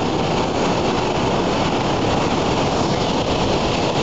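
Hand-held Japanese tezutsu bamboo-tube fireworks spewing fountains of fire, giving a loud, steady, deep rushing noise with no breaks.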